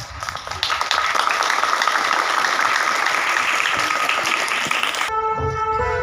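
A crowd applauding with dense clapping, which cuts off abruptly about five seconds in, giving way to music with long held notes.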